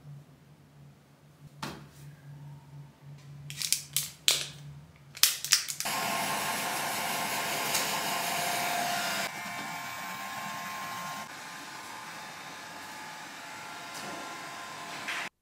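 Hand-held hair dryer blowing steadily, starting about six seconds in and stepping down in loudness twice. It is preceded by a few sharp clicks and soft rustling.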